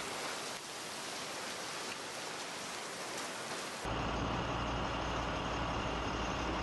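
Heavy driving rain and wind, a steady loud hiss of a severe storm. About four seconds in it cuts off abruptly to a different steady low rumble with a faint hum.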